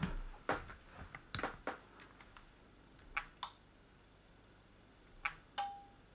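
Faint scattered clicks and taps from plugging in and switching a repaired smart plug, two of them in quick pairs, with a short steady beep near the end.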